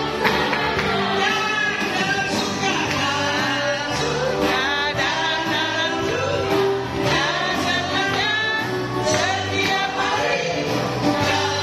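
Christian worship song: several voices singing a melody over instrumental accompaniment with a steady bass line.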